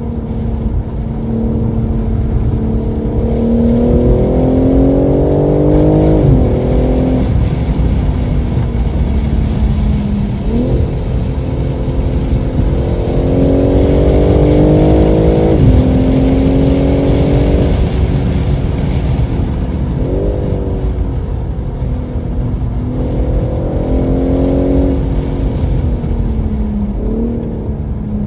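A 2023 BMW M3 Competition's twin-turbo inline-six accelerating hard on track: the engine note climbs in pitch over a few seconds and drops back at each shift or lift, three long pulls with a few short quick rises between them, over a steady low rumble.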